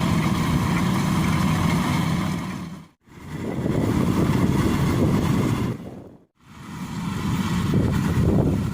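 Combine harvester engine running loud and steady, heard in short stretches that each fade to silence and back in, about every three seconds.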